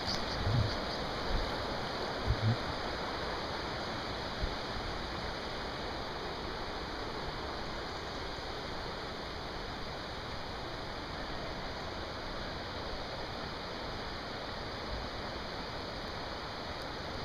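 River water rushing over a weir and rapids: a steady, even rush. A few low thumps come in the first three seconds.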